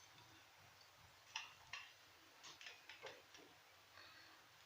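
Near silence, with about half a dozen faint, light clicks from kitchenware being handled in the middle stretch.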